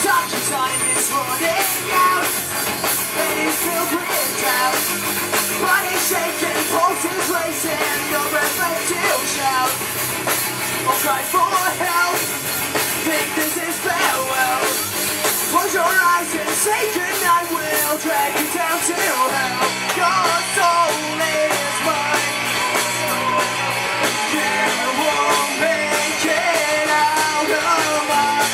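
Live rock band playing through a PA: electric guitars, bass guitar and drum kit with a male singer. The low end fills out about two-thirds of the way in.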